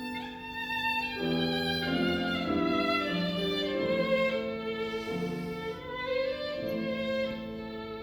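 Violin playing a bowed melodic phrase of held, changing notes, with lower accompanying notes sounding beneath it.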